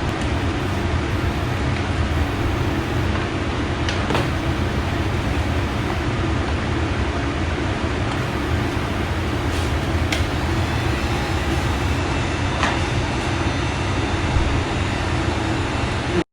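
Steady low background rumble, with a few faint clicks and taps.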